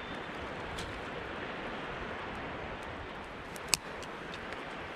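Small campfire of driftwood kindling crackling faintly over a steady background rush, with one sharp crack about three-quarters of the way through.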